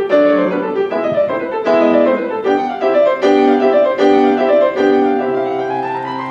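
Background music: a piano playing a slow melody over chords, a new note or chord struck about every eight-tenths of a second.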